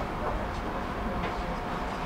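Tram running along the track, heard from on board: a steady rolling rumble with a faint constant whine and a few light clicks.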